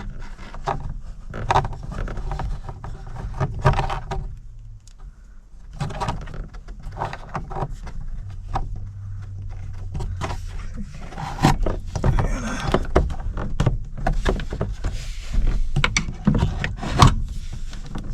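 Scattered clicks, knocks and rattles of plastic dash parts being handled and fitted back together, over a low hum.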